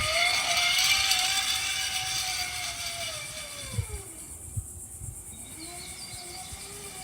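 Zip line trolley rolling along the cable: a whine that rises as it picks up speed, holds, then falls away about four seconds in as it slows, with a few knocks as it comes to a stop. Insects buzz steadily underneath.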